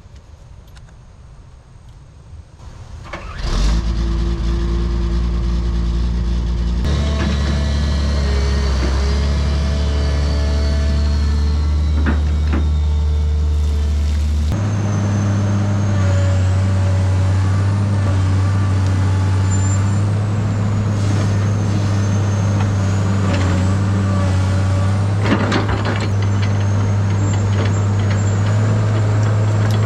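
Komatsu PC220 excavator's diesel engine starts about three and a half seconds in and runs steadily, its speed stepping up twice. A faint high whine rises and falls over the engine.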